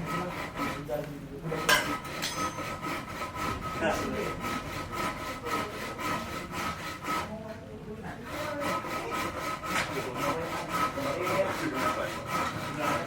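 Rhythmic scraping or rubbing strokes, about four a second, with a short pause a little past the middle. A faint steady hum runs underneath.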